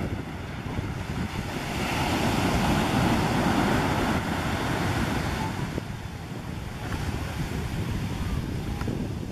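Surf breaking on a sandy beach: a wave crashes and washes up the shore, swelling louder in the middle and then easing off, with wind buffeting the microphone.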